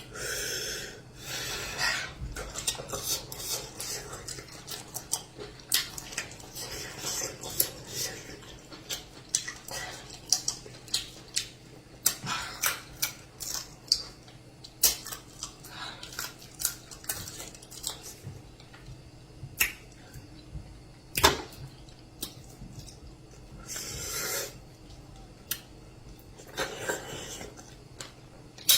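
A person eating amala and native soup close to the microphone: many irregular, sharp clinks and taps against a plate or bowl, with a few short softer eating noises between them.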